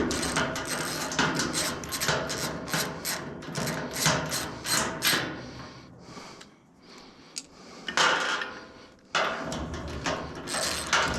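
Hand-tool work during assembly: a quick run of short scraping strokes, a few a second. It eases off about halfway, then scraping starts again near the end.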